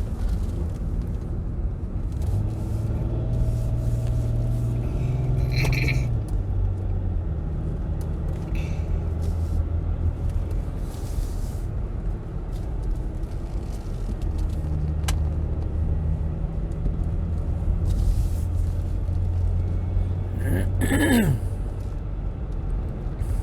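Car engine and tyre noise heard from inside the cabin while driving: a steady low drone whose engine hum steps up and down in pitch a few times as the car climbs and takes the curves.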